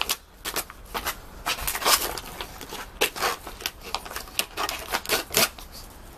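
A plastic cup clattering and scraping on paving stones as a pug shoves it along with its face. It comes as irregular clicks and scrapes, several a second, and stops shortly before the end.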